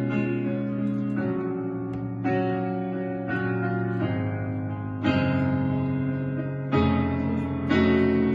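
Instrumental intro of a gospel song: a string of sustained chords, each struck fresh about every one to one and a half seconds, before any voices come in.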